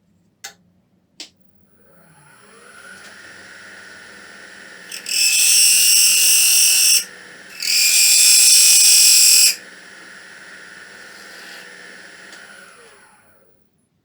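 A wood lathe clicks on twice, spins up with a rising hum, runs steadily and winds down near the end. In the middle come two loud hissing passes of about two seconds each, as something is held against the spinning wood.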